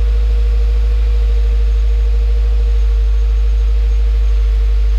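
2016 Subaru WRX's 2.0-litre turbocharged flat-four idling steadily, heard from the driver's seat, running on a freshly flashed stage 1 map for a new Mishimoto cold-air intake while the ECU learns the intake.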